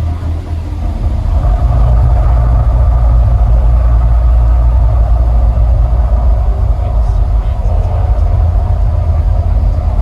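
Deep, steady rumble of the Mirage volcano show's eruption effect, swelling about a second in and then holding, with faint sustained tones above it.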